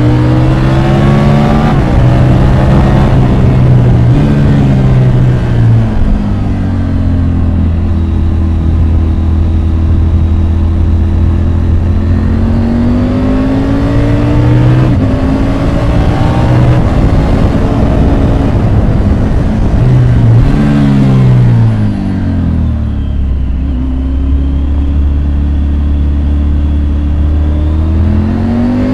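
Triumph Tiger 850 Sport's three-cylinder engine under way, revving up and dropping back through the gears again and again, with a few quick up-and-down swoops and stretches of steady low-rev running in between.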